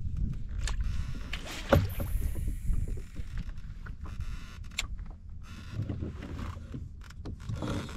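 Water lapping and slapping against a kayak hull, with wind rumbling on the microphone and a few sharp knocks and clicks from gear handled in the boat.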